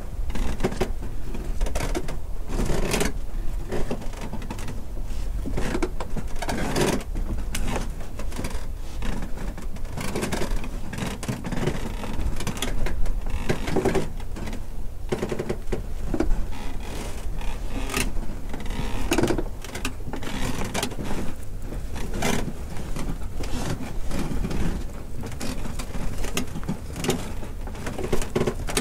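Wooden dock timbers shifting under stress: irregular knocks and rattles, with drawn-out creaking groans here and there over a steady low rumble.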